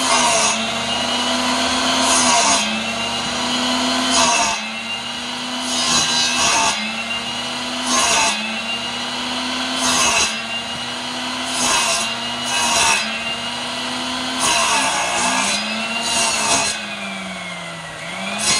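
Electric mitre saw running while its spinning blade bites into a hand-held wood log, shaving it down. A louder rasping cut comes about every two seconds, and each time the motor's whine drops in pitch under the load. Later on it dips deeper twice and slowly climbs back.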